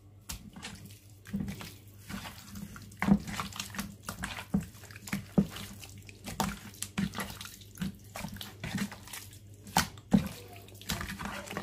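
Raw chicken breasts squished and turned by hand in an oily spice marinade in a bowl: irregular wet squelches and slaps.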